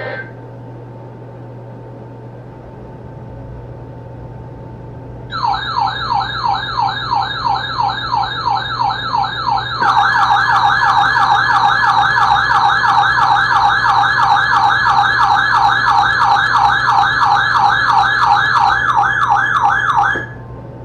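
Electronic alarm siren yelping in rapid repeating pitch sweeps, about three or four a second, starting about five seconds in. A second, louder siren layer joins about halfway through, and both cut off abruptly near the end.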